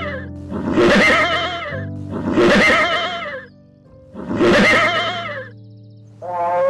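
Horse whinnying: the same neigh, with a wavering pitch, comes three times about 1.7 s apart over background music. Near the end a different, lower animal call starts and falls in pitch.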